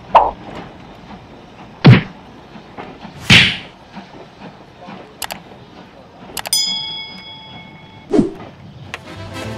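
Sound effects of a subscribe-button animation: sharp thuds and a whoosh in the first few seconds, mouse clicks, then a bell ding that rings for over a second, over faint noise of a train pulling away.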